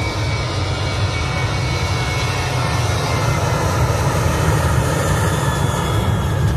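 Jet engines of a Lion Air twin-engine airliner at takeoff thrust during its takeoff roll: a steady roar with a heavy low rumble and a faint high whine, swelling slightly.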